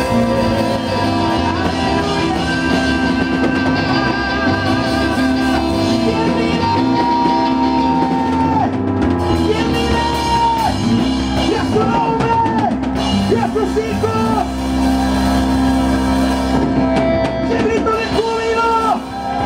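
Live band playing a rock-style worship song on drum kit, keyboard and electric guitar, with a lead melody of held and bending notes over sustained chords.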